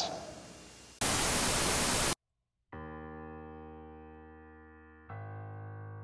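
A loud burst of TV-style static lasting about a second, cut off into a brief silence, followed by sustained keyboard chords that slowly fade, with a new chord struck about five seconds in.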